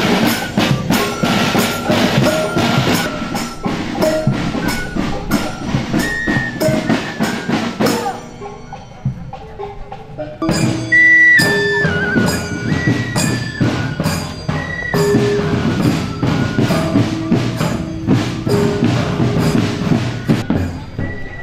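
Javanese palace guard marching band: flutes playing a melody in held notes over quick, steady drum beats. The music drops away briefly about eight seconds in and comes back louder.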